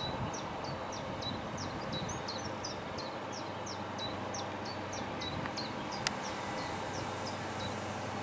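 SNCF BB 60000 diesel locomotive running as it approaches, a steady low engine hum, while a small bird chirps over it, about three short chirps a second that stop shortly before the end. A single sharp click about six seconds in, and a high hiss comes up near the end.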